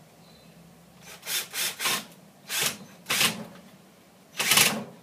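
Power drill run in short trigger bursts, driving screws through a sheet of rubber into a metal garden trowel: about six brief whirs from about a second in, with short pauses between them.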